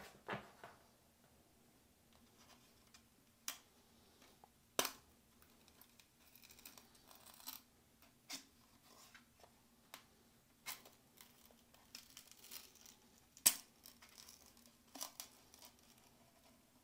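Plastic pry picks scraping and clicking faintly around the rim of an Amazon Echo Pop as its fabric mesh grill, held on by adhesive, is pried loose, with scattered sharp clicks and short scrapes.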